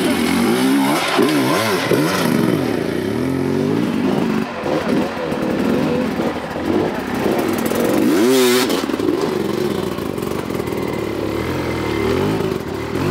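Dirt bike engines revving in short bursts with the throttle worked on and off, pitch climbing and falling repeatedly as the bikes are forced up rocky climbs. One quick, sharp rev rises and drops about eight seconds in.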